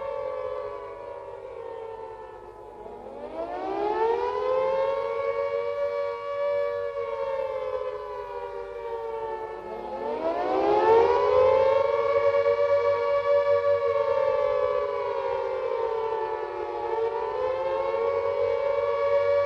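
Carter Gents air-raid siren sounding the rising-and-falling warning wail. Its pitch sinks and climbs back three times, each time swooping up from low and holding high before falling again, the third dip shallower. A wavering wail like this is the alert of an air raid; the all-clear is a steady note.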